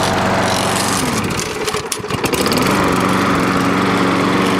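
Craftsman 6.5 hp self-propelled lawn mower engine running. About a second in, its speed sags and then picks back up about a second later, and it runs steadily after that. The drive belt has been put back on its pulley, and the mower is running fixed.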